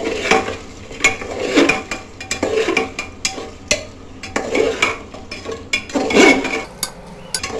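A steel spoon stirring and scraping spice-coated taro slices around the inside of a metal pressure cooker, with irregular scrapes and clinks against the pot roughly once a second.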